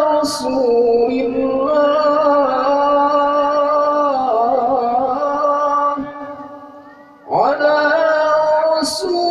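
A solo voice chanting the sholawat, a sung blessing on the Prophet, in long melismatic phrases with wavering ornamented pitch. The held phrase fades out about six seconds in, and after a short breath a new phrase begins.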